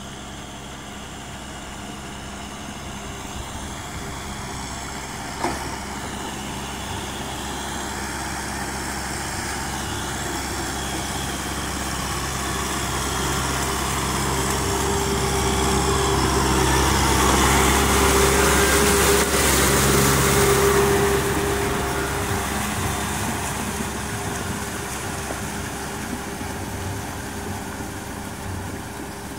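Kubota M6040SU tractor's four-cylinder diesel engine running steadily under load while tilling a flooded rice paddy. It grows louder as the tractor draws near, peaks about two-thirds of the way through, then fades as it moves off. There is a single sharp click about five seconds in.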